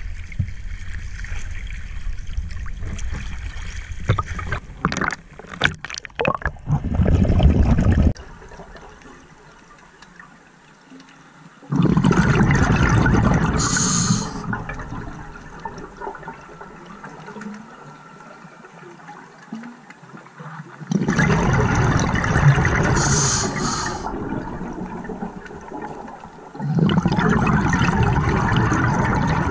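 Scuba regulator heard underwater: the diver's exhaled bubbles rush out in three loud bursts of a couple of seconds each, several seconds apart, with quiet inhalations between. Before that, water sloshes and splashes against the camera at the surface as the diver goes under.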